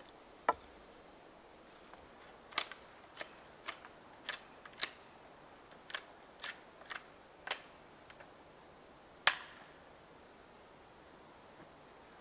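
Dry wooden sticks knocking and clicking against each other as they are handled and laid in place, about a dozen sharp, irregular knocks; the loudest come just after the start and about nine seconds in.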